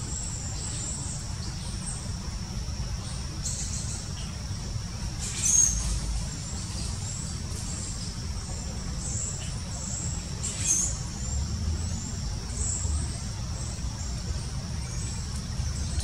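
A pileated woodpecker pecking at a fallen log: a few sharp taps, loudest about five and a half and ten and a half seconds in, over a steady low rumble and a steady high hum.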